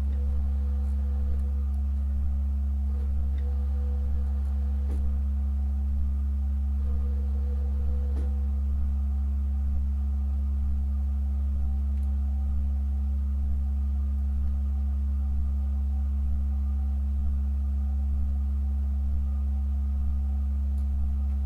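Pipe organ holding a sustained low chord: a strong deep pedal tone with a quieter tone above it and faint higher tones, all steady. A thin middle tone drops out and comes back a few times in the first half.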